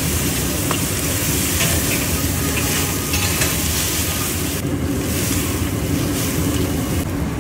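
A large iron kadhai of Manchurian gravy sizzling and hissing with steam as water is poured onto the hot pan, over a low rumble from the gas burner's flame. The hiss dips twice, briefly, in the second half.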